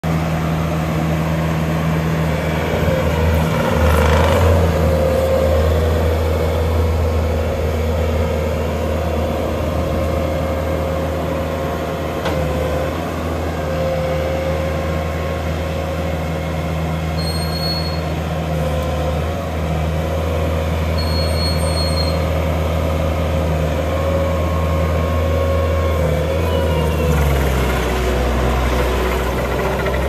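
Bobcat T740 compact track loader's four-cylinder turbocharged D34 diesel engine running steadily as the machine drives and raises its bucket, a low drone with a thin whine over it.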